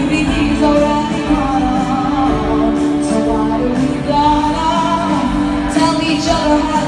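A female pop singer sings live over band accompaniment through a concert PA, recorded from the audience.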